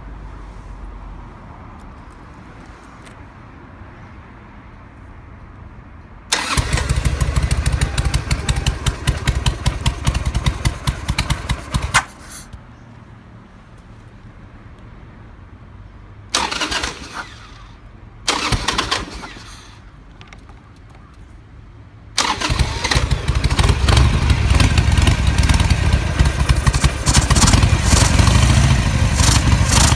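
Harley-Davidson Sportster 883's carbureted air-cooled V-twin being started cold: a burst of about six seconds that ends in a sharp pop, two short attempts of about a second each, then the engine catches and keeps running. In cold weather this engine's carburetor sneezes, spitting back through the intake.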